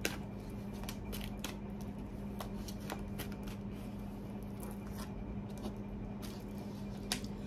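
A deck of tarot cards being shuffled and handled by hand: soft, irregular card flicks and taps, over a steady low hum.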